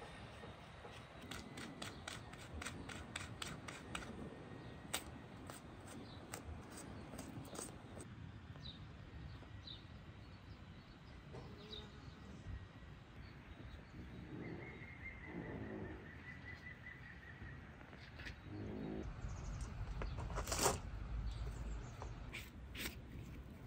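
Knife clicking and scraping as it cuts through a raw bull leg on a wooden board, with short bird calls in the middle and one louder knock near the end.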